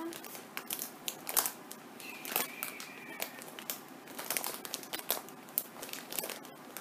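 A foil blind-bag wrapper crinkling and crackling in irregular bursts as hands open it and pull the plush toy out.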